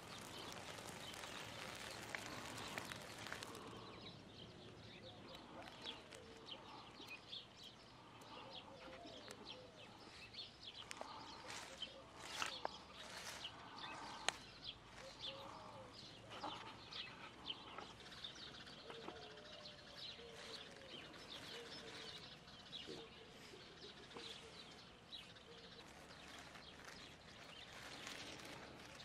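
Faint outdoor birdsong: many small birds chirping, with a few lower calls. A steady hiss for the first few seconds cuts off, and a couple of sharp clicks stand out about halfway through.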